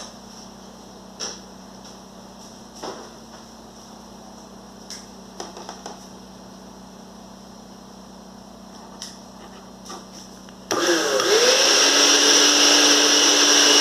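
A few light clicks and knocks, then near the end an Arno blender's motor switches on, spins up quickly and runs at a steady high speed. This is a test run after a new drive coupling was fitted.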